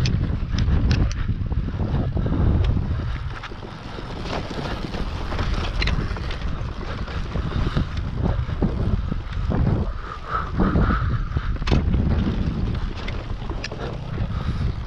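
Wind buffeting the microphone over the rumble and rattle of a dirt bike rolling slowly down rough grassy ground, with scattered sharp knocks from the bumps.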